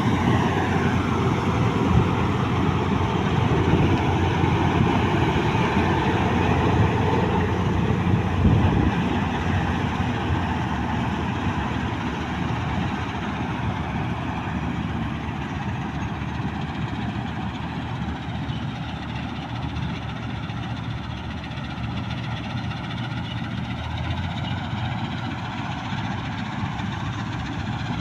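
New Holland 8070 combine harvester running steadily with a dense mechanical din, a little louder in the first third and settling slightly quieter after that.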